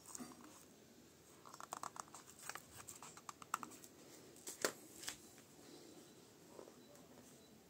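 A small digital pocket scale being handled: faint clicks and a short rasp from its plastic-and-metal case, with two louder clicks near the end of the activity as its back is pressed.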